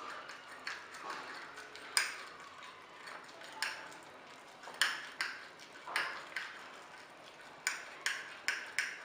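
Fork clinking and scraping against a ceramic mug while mixing cake batter, with about a dozen irregular sharp taps.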